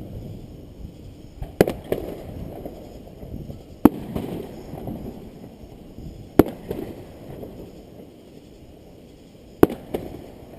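Fireworks display: aerial shells bursting with sharp, loud reports, about six in ten seconds, two of them coming as quick pairs, over a low rolling rumble between the bangs.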